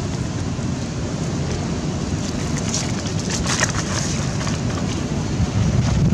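Wind buffeting the microphone in a steady low rumble, with dry leaves crackling as monkeys move about on the leaf litter, the crackling thickest around the middle.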